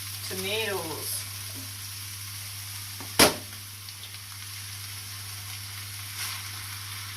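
Browned beef mince sizzling steadily in a frying pan, with a single sharp knock about three seconds in.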